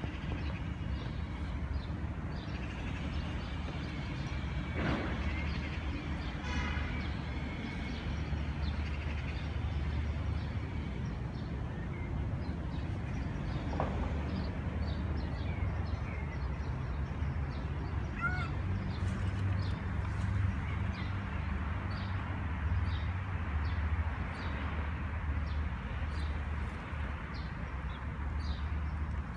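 Outdoor park ambience: a steady low rumble of distant traffic, with scattered short bird chirps and a few louder bird calls, one of them harsh and caw-like.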